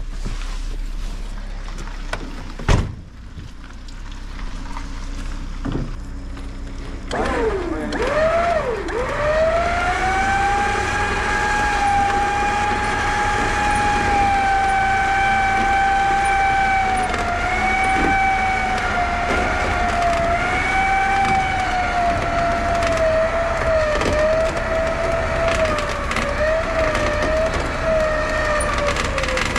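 A motor spins up about seven seconds in and runs with a steady high whine, its pitch wavering and sagging slightly toward the end. A sharp knock sounds a few seconds before it starts.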